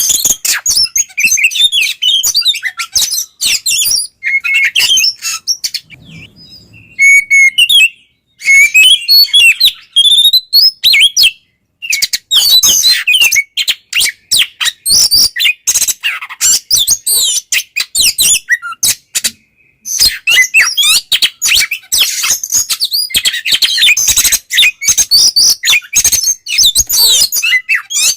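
Oriental magpie-robin (kacer) singing loudly in full 'ngeplong' song: a fast, varied stream of chirps, trills and clear whistles, broken by a few short pauses.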